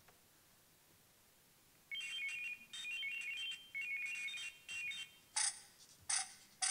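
Rapid electronic beeping at several shifting high pitches, trilling on and off for about three seconds, then three short noisy bursts near the end.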